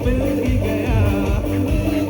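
Music: a song with a singing voice over a steady drum beat.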